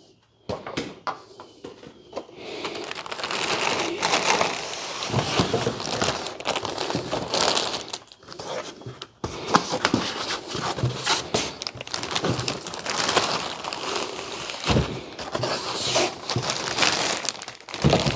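Plastic wrapping crinkling and a cardboard box rustling and scraping as a radiator is pulled out of its packaging, with irregular crackles and knocks and a short pause about eight seconds in.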